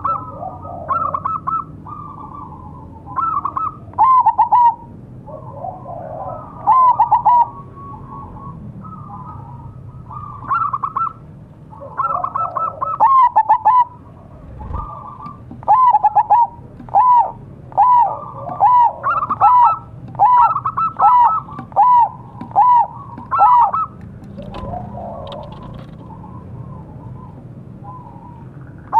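Zebra dove (perkutut) of the mega mendung variety cooing: loud, short, clear notes repeated at much the same pitch, scattered at first and then in a fast, even run of about two a second through the second half, with softer, lower coos in between.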